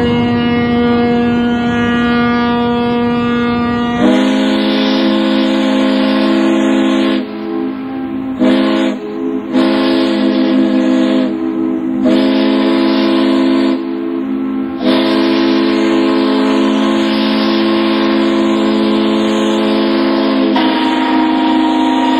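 Ships' steam whistles blowing a salute. A single whistle note is held for the first few seconds, then several whistle tones sound together in long blasts, with short breaks a few times along the way.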